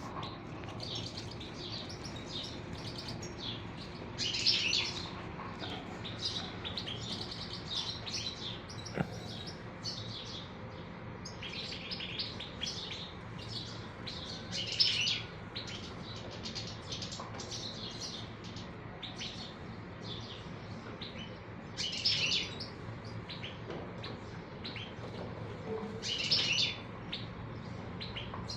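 Small birds chirping and twittering in quick, busy runs of high notes, with four louder bursts of chirps spread through, over a faint steady low hum.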